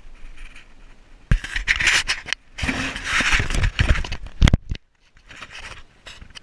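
Handling noise: the phone and its microphone rubbing and scraping against sandstone and clothing as the climber squeezes through the crevice, in two long stretches with a sharp knock near the end.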